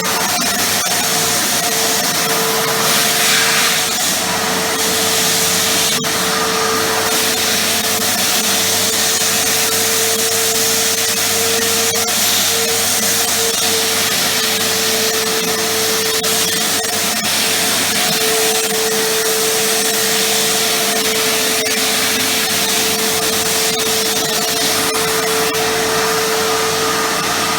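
Titan TTB350VAC wet and dry vacuum cleaner running continuously, a steady rush of air with a constant mid-pitched whine from the motor.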